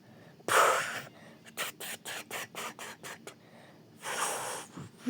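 Sound effects made with the mouth: a breathy hiss, then a quick run of about eight short clicks, about five a second, then another short hiss.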